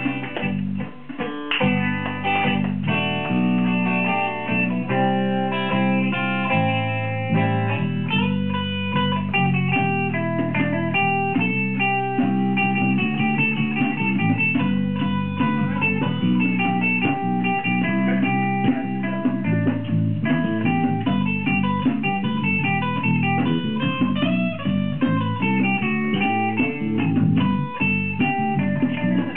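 A small live band playing an instrumental passage, with electric guitar and bass guitar.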